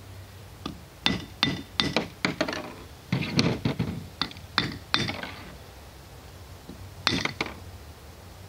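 Metal casting tools and a steel socket mold clinking and knocking as lead slingshot ammo is cast: a run of sharp taps, some with a short ring, in three bursts with a quieter pause before the last.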